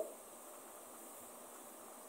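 Faint steady hiss of room tone; no distinct mixing or other sounds stand out.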